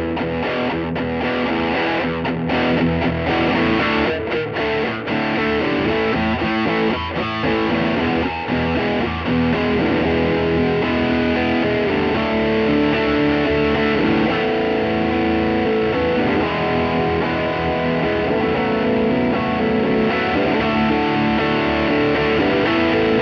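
Electric guitar phrase looped on a Boss RC-3, played back through a Bad Cat Siamese Drive overdrive pedal into a Peavey Classic 50 4x10 amp. The tone is driven and distorted, the phrase choppy for the first several seconds and then more sustained, with the drive changing as the pedal's knobs are turned.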